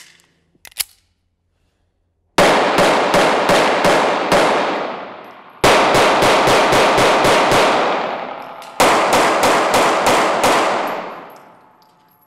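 Smith & Wesson M&P Shield 2.0 pistol fired in three rapid strings of about six to eight shots each, roughly three shots a second, each string ringing on and fading, echoing in an indoor range. Two short clicks come just before the first string.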